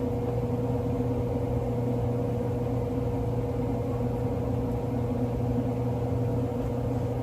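A steady low machine hum with a held pitched drone that does not change.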